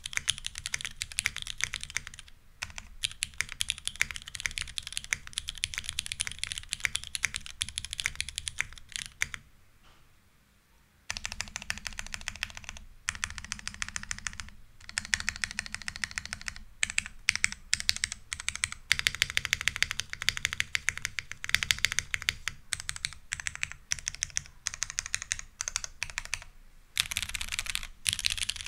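Fast typing on a custom mechanical keyboard: lubed vintage West German Cherry MX Black linear switches in an aluminium plate on a CEM-3 PCB, with GMK keycaps, giving a dense run of sharp keystrokes. The typing stops for about a second near ten seconds in, then resumes and goes on to the end.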